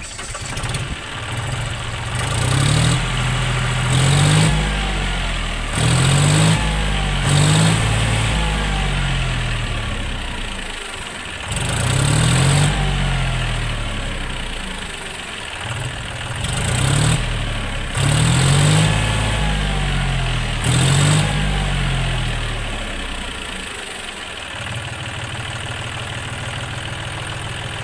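John Deere 5050D tractor's naturally aspirated diesel engine, on its stock silencer with no turbo whistle fitted, revved in about eight short blips that each fall back to idle. It idles steadily for the last few seconds.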